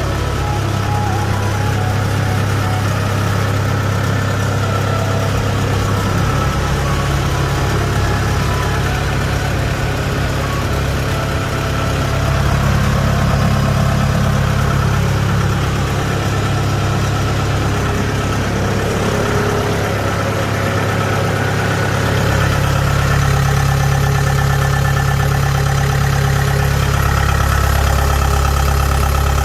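Kubota DC70H combine harvester's diesel engine running steadily, its low hum shifting in pitch a few times.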